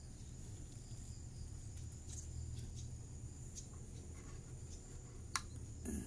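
Faint, steady high-pitched insect chirring over a low hum, with one sharp click near the end.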